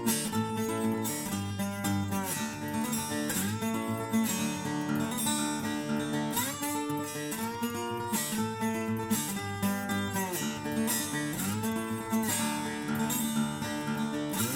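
Background music: plucked and strummed acoustic guitar playing steadily, with notes that slide between pitches here and there.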